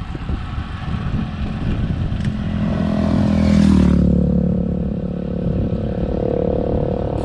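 A motor vehicle passes close by on the road, its engine swelling to its loudest about three and a half to four seconds in and staying audible afterwards, over steady wind and road rumble on the bicycle's camera microphone.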